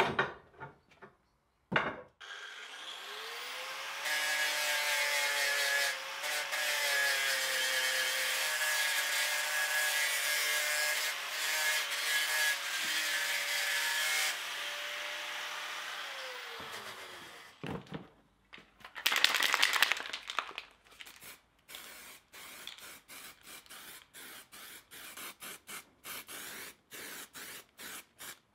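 Electric angle grinder spinning up with a rising whine, then grinding steel rebar with a harsh, loud grinding noise for about ten seconds, then winding down to a stop. After a brief loud burst, a run of quick, light, evenly spaced scraping strokes follows.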